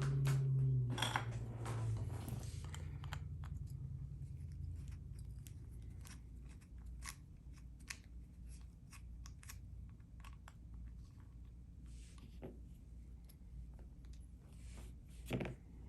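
Small metallic clicks and scrapes of hand tools working on a pin-tumbler lock, taking the back off its cylinder to gut it, with a few louder clicks in the first two seconds and one near the end.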